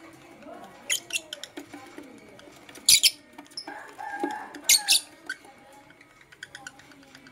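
Lovebirds chirping: short, sharp, high-pitched calls in quick clusters, the loudest about three and five seconds in, with fainter chirps between.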